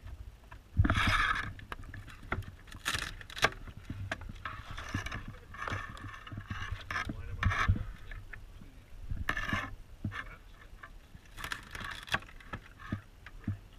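Dungeness crabs being cleaned on a fixed cleaning blade: shells cracking and scraping against the blade, with knocks on the wooden board. A string of sharp cracks and short scraping bursts, the loudest a little under a second in.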